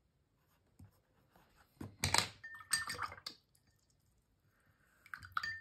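Art tools handled on a wooden desk: two short bursts of clicks and taps, about two seconds in and again near the end, each with a brief thin ringing clink, as a pen is set down.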